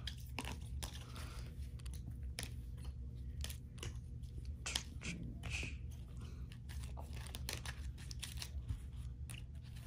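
Trading cards in clear plastic top-loaders and sleeves being handled and stacked: irregular soft plastic clicks and crinkly rustles over a low steady hum.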